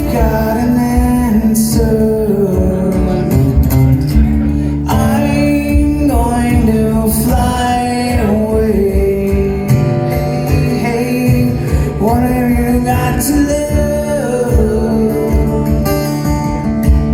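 Acoustic guitar strummed with a man singing over it, a live song performance; the vocal line slides up and down between held notes.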